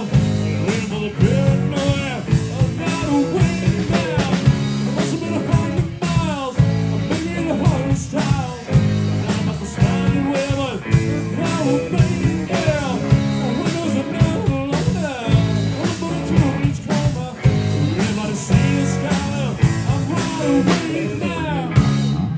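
Live rock band playing, with electric guitars, bass guitar and drum kit.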